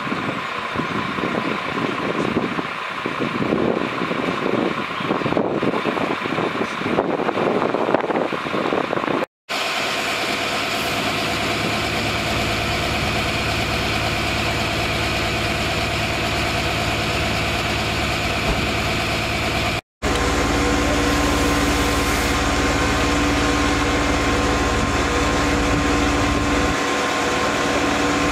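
Fire engine's diesel engine running, uneven for the first nine seconds and then a steady hum with a fixed low tone. The sound breaks off abruptly twice, at about nine and twenty seconds.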